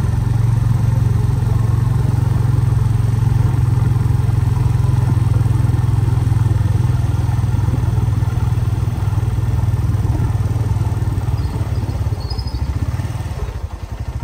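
Steady, loud, low mechanical rumble, like an engine running, that dips briefly near the end.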